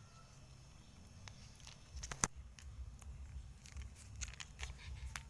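Faint handling clicks and rustles of a small, stiff package being worked open by hand, with one sharper click about two seconds in and more small clicks after.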